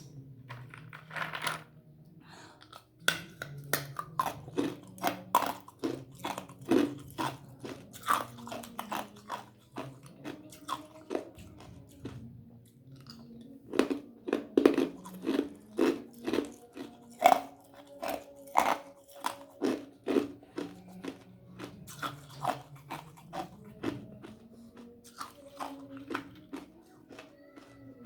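A person biting and chewing ice up close, with repeated sharp crunches that come in clusters and are busiest about halfway through.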